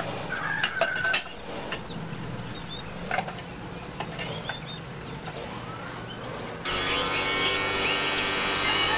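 Sharp clicks as small block batteries are set into the sockets of a homemade desktop air conditioner, then about two-thirds through the unit switches on: a sudden steady hum of several pitches from its motor.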